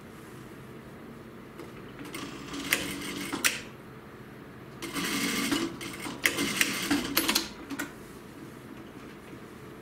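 JUKI industrial lockstitch sewing machine stitching in two short runs, about two seconds in and again about five seconds in, with sharp clicks in each run.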